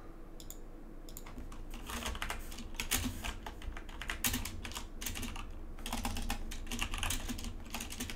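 Typing on a computer keyboard: a few scattered key clicks, then quick runs of clicks from about a second and a half in.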